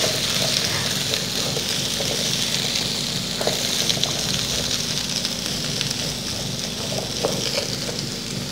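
Charque (dried salted beef) and diced potatoes frying in oil in a pan, a steady sizzle, with a few faint scrapes and clicks from a silicone spatula stirring them.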